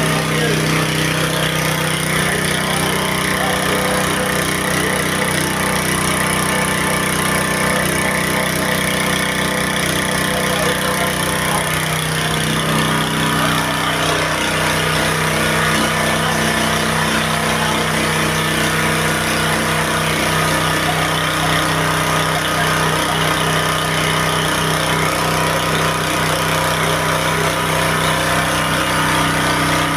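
KisanKraft KK-P-999 portable sprayer's pump motor running steadily, with the hiss of the water jet from the spray gun. Its low note shifts slightly about twelve seconds in.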